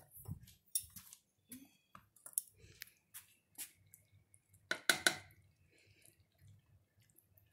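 Metal spoon stirring thick gravy in a skillet: scattered small clicks, with a louder clatter of the spoon against the pan about five seconds in.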